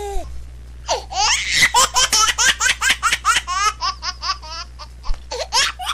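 A long run of high-pitched laughter, many quick 'ha's in a row, over a steady low hum.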